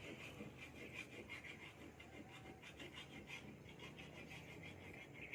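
Near silence: faint outdoor background with a steady high faint hiss and tiny scattered ticks, no distinct event.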